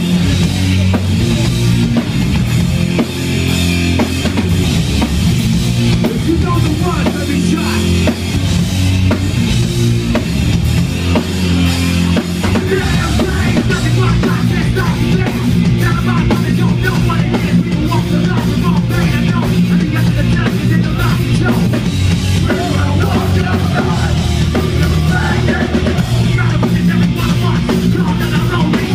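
Hardcore punk band playing live and loud: pounding drum kit, bass and distorted electric guitars, heard from among the audience in a club.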